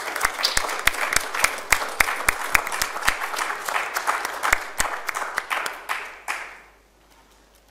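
Audience applauding at the end of a lecture: many hands clapping, fading out about six seconds in.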